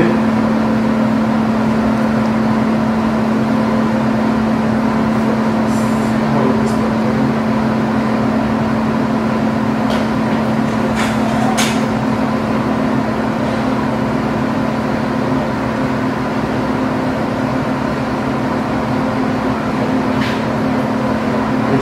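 A steady mechanical hum with one strong low droning tone, unchanging throughout, with a few faint clicks around the middle.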